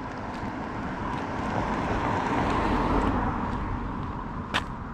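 A car passes on a wet road: the hiss of its tyres and engine swells to its loudest about three seconds in, then fades away. A single sharp click sounds near the end.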